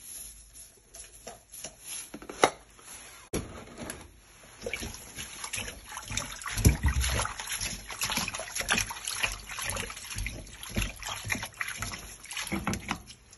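Hands working raw boneless chicken feet in a bowl of water with vinegar and salt to clean them: irregular wet rubbing and splashing, sparse at first and busier from about four seconds in.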